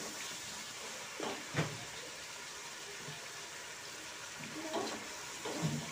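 Onions, tomatoes and green chillies frying in a large pot with a steady hiss, while a ladle stirs and scrapes through them, knocking against the pot about a second and a half in and again near the end.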